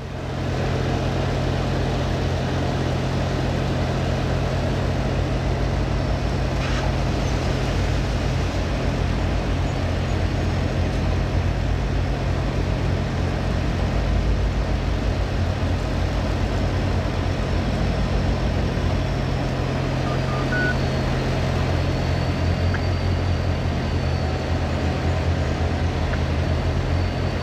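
Diesel freight locomotives working steadily as a train pulls out: a continuous low engine drone, with a faint high whine above it from a few seconds in.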